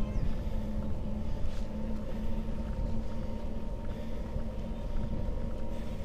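Rad Power RadCity e-bike being ridden along asphalt: a continuous low rumble of tyre noise and wind on the microphone, with a steady low hum running underneath.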